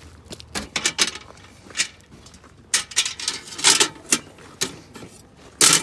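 Camp gear being folded up by hand: a run of uneven clicks and light metallic clattering in short clusters, ending in one loud clack.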